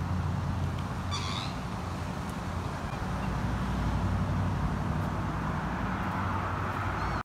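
Steady outdoor background noise with a low hum underneath. A single short, high bird call comes about a second in.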